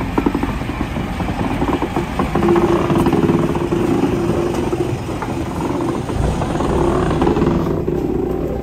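Diesel locomotive's engine running as the train moves off slowly. The drone grows louder after about two seconds and holds a steady tone through the middle.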